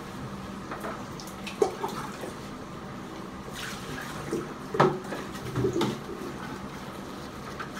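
Wet splashing and rubbing as a French bulldog is lathered and scrubbed in a shower, with a few sharp knocks and splashes, the loudest about five seconds in, over a steady background of water noise.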